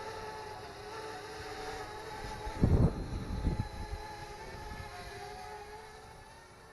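Parrot Bebop 2 quadcopter hovering, its propellers giving a steady, even hum. A burst of loud low rumble comes about two and a half to three and a half seconds in, typical of wind buffeting the microphone.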